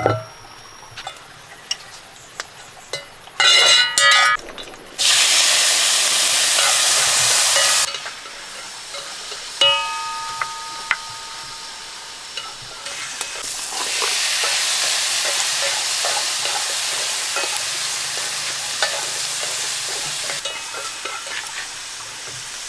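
Food sizzling as it fries in a hot pan, with a metal utensil clinking against it. Two spells of loud hissing start and stop abruptly, one of about three seconds and one of about seven, with clanks before and between them.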